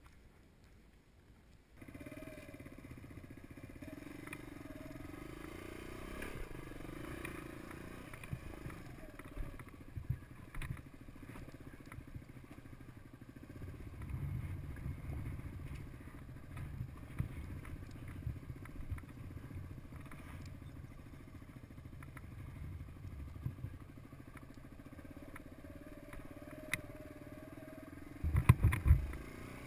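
A Suzuki DR200's single-cylinder four-stroke engine running steadily as the dirt bike rides a rough, rocky trail, with scattered clattering knocks from the bumps. The engine sound cuts in suddenly about two seconds in, and a cluster of loud knocks comes near the end.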